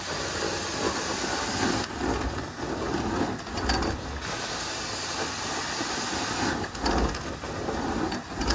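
Hot water extraction carpet-cleaning wand hissing with suction and spray as it is worked across shag-like carpet. The hiss comes and goes in strokes of about two seconds, over a steady low rumble.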